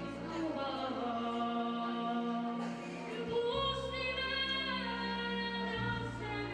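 A boy singing a Serbian folk song into a handheld microphone, holding long notes with vibrato, over instrumental accompaniment whose low sustained notes change about halfway through and again near the end.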